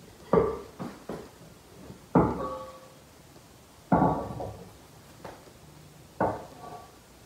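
Metal clanks from handling a Ford flathead V8 crankshaft stood on end: four sharp knocks about two seconds apart, each ringing briefly, with a few lighter taps between.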